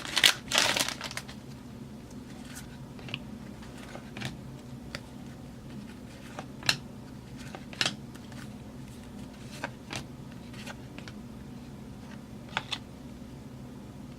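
Trading-card pack wrapper crinkling and tearing open for about the first second, then scattered soft clicks and flicks of football cards being handled one at a time, over a steady low hum.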